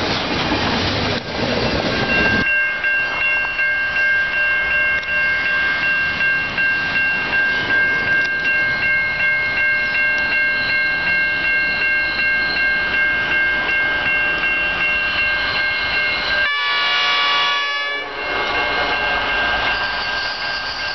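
Freight train container wagons rattling past for the first two seconds or so. Then a steady high ringing tone is held for a long stretch, and about three-quarters of the way through a diesel locomotive's horn sounds briefly as the next train approaches.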